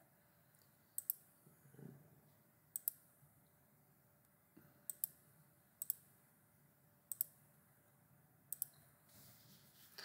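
Computer mouse clicks: six sharp clicks at irregular intervals over near silence, each a quick double tick.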